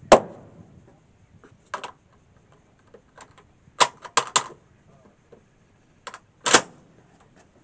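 A single shot from a CETME C308 rifle just after the start, then a series of metallic clicks and clacks as the rifle is handled, with a quick cluster of clicks about four seconds in and a sharper clack near the end.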